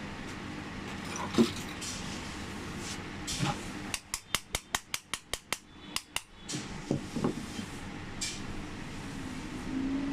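Small metal clicks and taps from tools working the retaining pin out of a Honda City lock cylinder: one loud click, then a quick, even run of about a dozen sharp taps, about five a second, followed by a few duller knocks.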